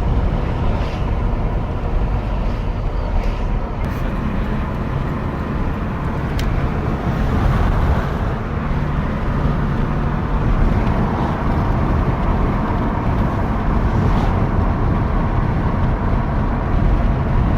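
Steady road and engine noise of a car in motion, heard from inside the cabin, with a few faint clicks.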